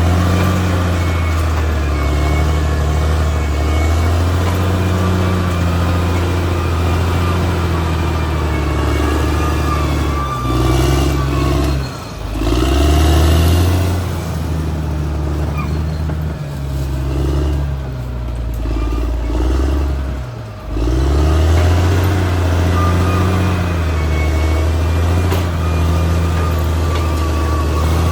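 Caterpillar D6R XL bulldozer's diesel engine working hard, its note dropping and picking back up about twelve seconds in and again about twenty seconds in.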